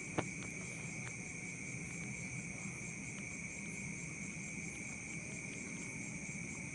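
Faint steady background hiss with a constant high-pitched whine, and a couple of faint clicks in the first second.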